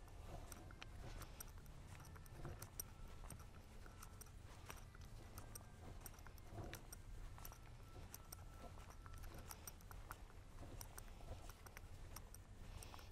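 Faint footsteps on cobblestones: soft, irregular clicks and scuffs over a low steady rumble.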